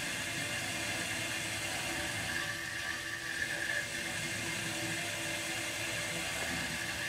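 Grundfos Alpha HWR hot water recirculation pump running, with water circulating through the piping: a steady whir and rush with a thin high-pitched tone over it.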